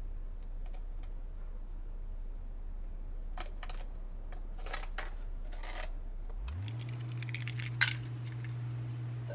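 Kitchen sounds played in slow motion: a deep steady hum with scattered clinks. About six and a half seconds in, the hum glides up in pitch as playback returns to normal speed. Then come quick clinks and one sharp clack near eight seconds.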